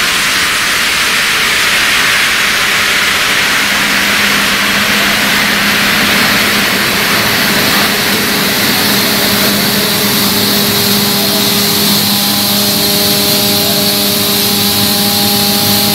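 PSA oxygen generator plant running: a loud, steady rushing hiss of air with a machine hum under it. The hum comes in a few seconds in.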